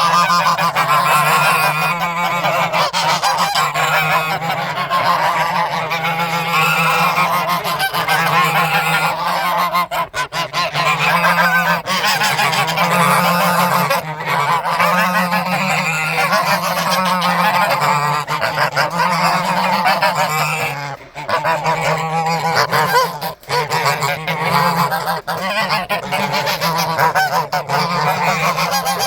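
A loud, continuous harsh honking din, under which a low hum steps back and forth between two pitches about once a second, with short dips in level twice near the end.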